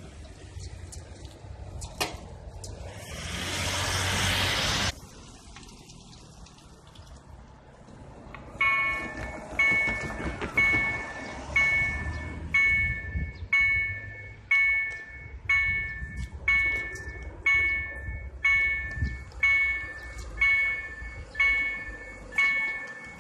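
Level-crossing warning bell ringing steadily, about one strike a second, starting about eight seconds in: the signal that the crossing barriers are closing for an approaching train. Earlier, a rushing noise swells and cuts off suddenly about five seconds in.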